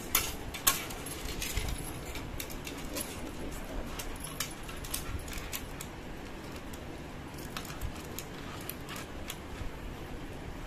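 Light metallic clicking and jingling of panchaloham (five-metal) jewellery chains being handled, a quick run of small clinks in the first half that thins out to scattered ones later.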